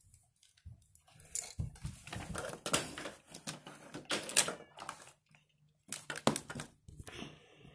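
Rapid, irregular clicking and clattering of hard plastic Lego pieces being handled, in two bursts with a short pause about five seconds in.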